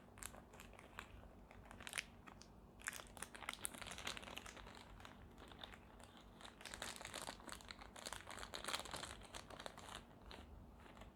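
Faint crinkling of plastic packaging with scattered light clicks and rustles as replacement mask parts are opened and handled.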